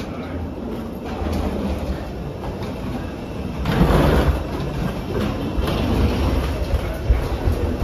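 Low rumble and clatter of passengers walking and wheeling luggage through an airport jet bridge, with a louder surge of noise about four seconds in.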